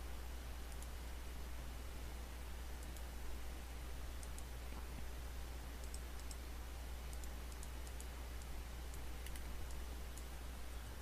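Scattered faint computer mouse clicks over a steady microphone hiss and low hum.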